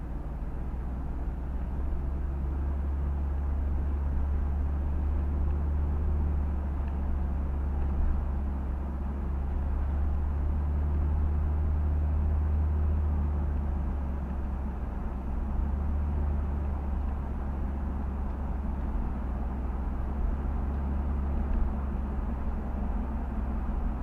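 Car driving on a road: a steady low rumble of engine and tyres, growing a little louder in the middle. Two brief knocks come through, one about a third of the way in and one near the end.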